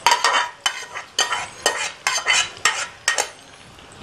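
Metal spoon scraping and knocking against the pressure cooker pot as cooked rice is scooped out into a glass bowl: a quick series of about eight scrapes and taps that stops about three seconds in.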